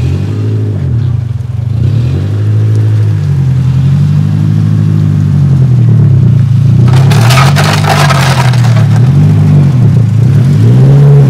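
Mazda RX-8's rotary engine being revved up and down over and over as the car creeps forward, its low note rising and falling with each blip. About seven seconds in there is a burst of crackling noise lasting a second or so.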